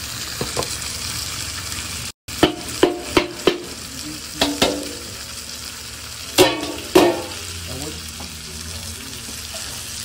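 Food sizzling as it fries in oil in a large aluminium cooking pot, a steady hiss, while a metal ladle stirs it and knocks sharply against the pot: four quick knocks about two and a half seconds in, two more a second later, and two ringing ones near seven seconds.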